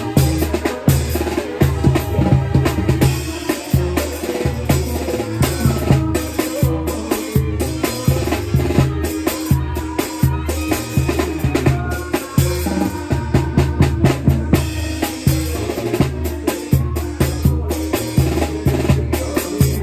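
Banda music dominated by a close-miked tambora: repeated deep bass-drum thumps from the mallet, with sharp rim and cymbal strikes on top. The rest of the band's sustained pitched notes sound underneath.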